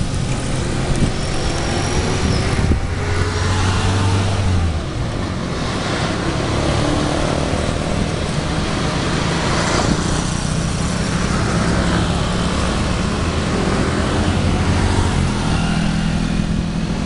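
Street traffic heard from an open cycle rickshaw: small motorcycle engines running close by, with steady road noise. One engine drones louder for a couple of seconds about three seconds in.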